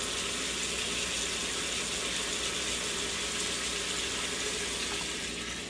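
Shrimp sizzling in wine sauce in an Instant Pot's inner pot: a steady hiss that eases slightly near the end.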